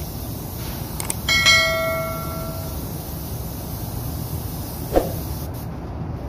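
Subscribe-button animation sound effect: mouse clicks, then a bell ding about a second and a half in that rings out and fades over about a second and a half, with another click about five seconds in. A steady low rumble runs underneath.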